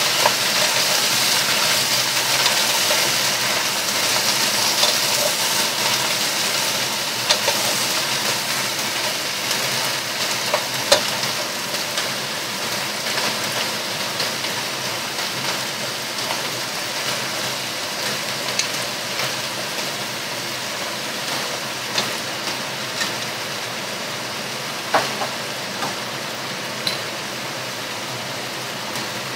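Chinese cabbage sizzling in a pot on a gas hob and being stirred with a wooden spoon: a steady hiss that slowly grows quieter, with a few sharp knocks standing out.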